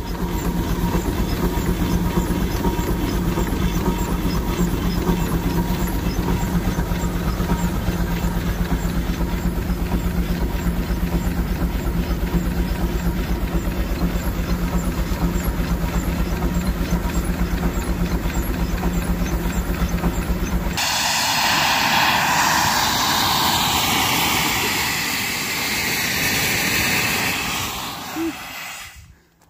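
1916 Case 80 HP steam traction engine running under belt to a fan, its exhaust chuffing fast and evenly over a steady hum. About two-thirds of the way through, this gives way abruptly to a loud hiss of steam blowing off from the engine, which fades out near the end.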